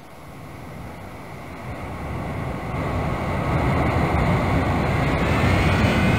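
Jet aircraft approaching, its engine noise swelling steadily over several seconds, with a high whine rising in pitch near the end.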